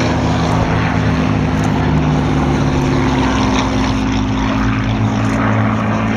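Piston engine of a WW2-era propeller aircraft running loud and close: a steady, heavy drone holding a fairly even pitch.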